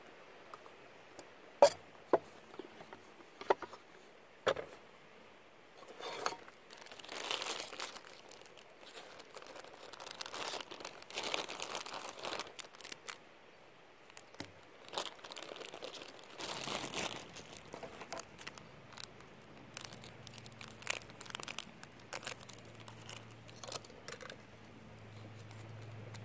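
Crinkly packaging being handled, torn and crumpled, with a few sharp clicks in the first seconds. A low steady hum comes in near the end.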